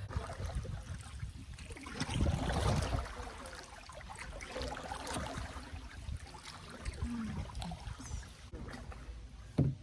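Canoe paddles dipping and pulling through river water, splashing and dribbling, with the heaviest splashing about two seconds in. A short thump just before the end.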